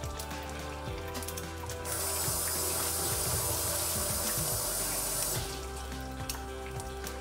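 Kitchen sink tap running for about three and a half seconds, turned on about two seconds in and shut off suddenly, over steady background music.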